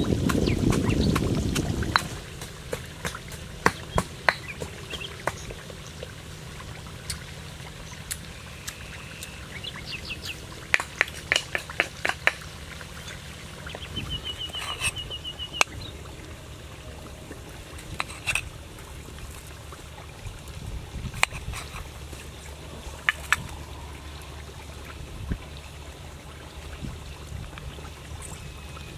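Stone pestle pounding chillies in a stone mortar for about two seconds, then scattered sharp clicks and knocks as a lime is cut and a spoon works the paste in the mortar. Birds chirp and trill in the background a few times.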